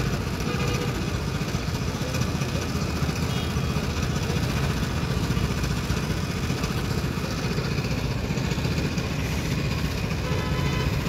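Engine of a motor-driven sugarcane juice crusher running steadily.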